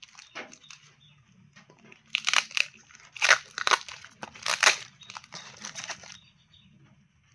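Crinkly packaging wrap being handled and crumpled in a run of rustling strokes, loudest in the middle few seconds.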